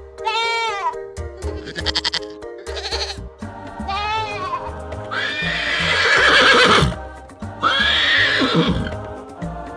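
A string of farm-animal calls over background music: several short wavering calls in the first half, then two longer, louder calls, the loudest about five to seven seconds in.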